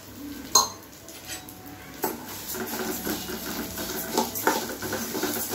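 A metal ladle stirring moong dal as it roasts in ghee in a metal kadai: a sharp clank about half a second in, another near two seconds, then a steady run of scraping and clinking against the pan.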